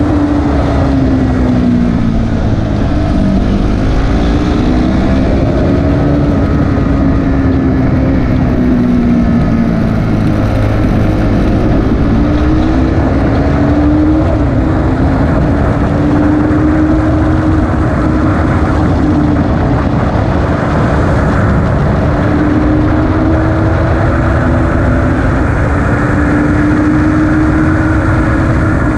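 KTM RC 390's single-cylinder engine at track speed, heard close up from the bike itself. The note falls and climbs again several times as the bike brakes into corners and accelerates out of them, with long stretches held high in between.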